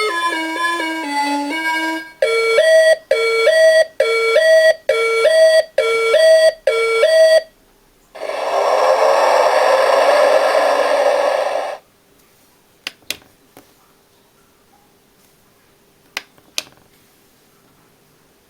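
Banpresto traffic-light alarm clock playing its electronic alarm sounds: a short beeping melody, then a two-note rising chime repeated about seven times, then a harsh buzzing tone for about four seconds. After that it stops, and a few faint clicks follow.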